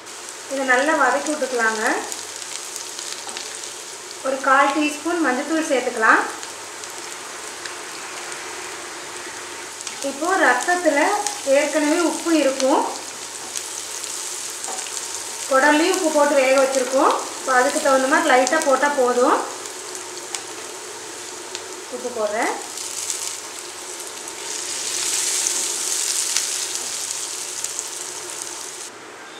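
Sliced onions, green chillies and curry leaves sizzling in hot oil in a nonstick frying pan, stirred now and then with a wooden spatula; the sizzle swells for a couple of seconds near the end. A voice is heard in short stretches several times over it.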